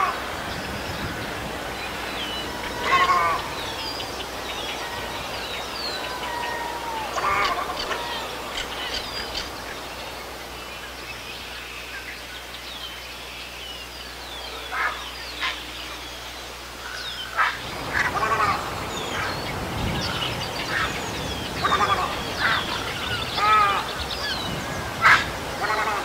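Short calls of herons and egrets every few seconds, with smaller birds chirping throughout the background.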